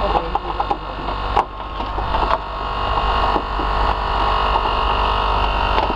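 Steady motor hum of a hydraulic rescue tool's power unit, with sharp cracks and snaps in the first second and a half, the loudest about a second and a half in, as the hydraulic cutter works on the car body.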